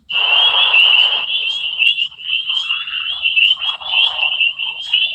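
A steady, high-pitched warbling electronic whine on a phone-call audio line, with patches of static hiss, loudest in the first second.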